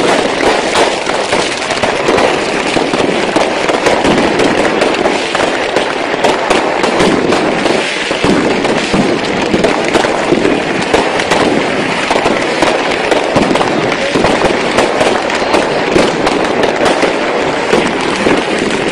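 Fireworks going off uncontrolled at close range, at ground level: a dense, unbroken barrage of overlapping cracks and bangs, many charges igniting at once.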